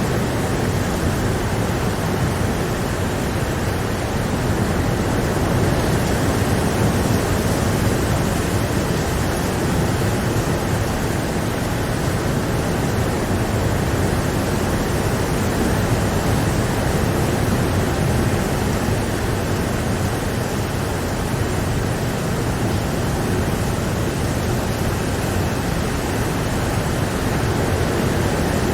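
Steady rain, a dense even hiss without distinct drops or thunder.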